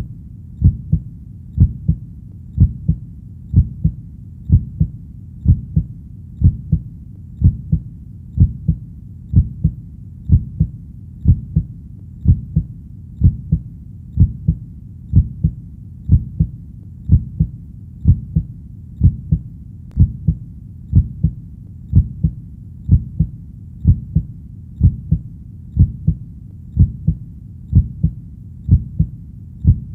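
Steady heartbeat: low, muffled double thuds (lub-dub), about one beat a second, evenly paced.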